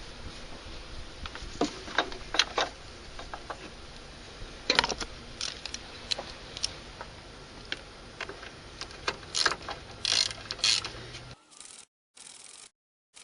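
Hand tools clicking and clinking on metal as a battery terminal clamp is fitted to its post and tightened. The clicks are irregular and cut off suddenly about eleven seconds in.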